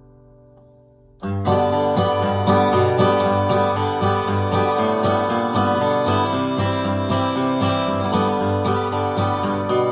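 Alvarez Masterworks MD90 acoustic dreadnought guitar. A chord rings and dies away, then about a second in a steady rhythm of strummed chords begins and carries on.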